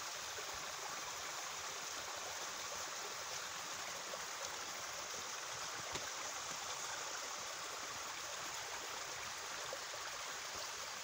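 Creek water running steadily, an even rushing sound, the stream flowing full after heavy rain.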